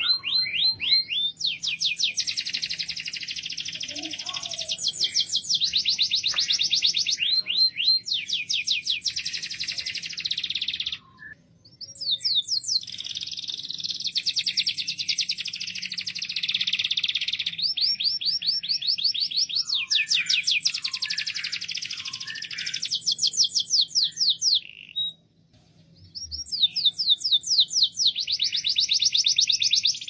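Canary singing loudly: long phrases of fast rolling trills, each a rapid run of repeated notes, with two brief pauses.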